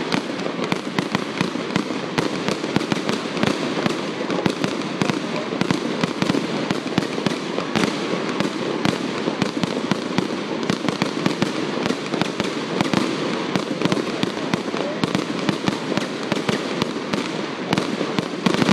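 Fireworks going off in a dense, unbroken barrage: many sharp bangs and pops a second over a steady rumble of bursts.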